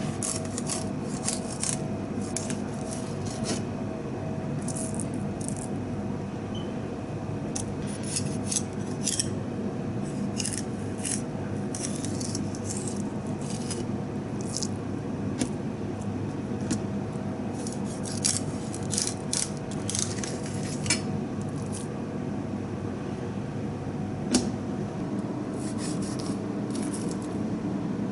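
Kitchen knife filleting a mackerel on a plastic cutting board: short scraping strokes and clicks as the blade works along the bones, scattered irregularly, over a steady background hum.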